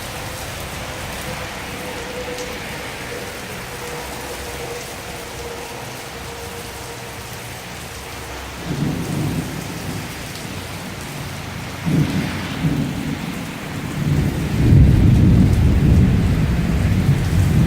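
Heavy monsoon rain falling steadily, then rolling thunder from a nearby lightning strike: a first rumble comes in about nine seconds in, another about twelve seconds in, and it builds to its loudest from about fourteen seconds on.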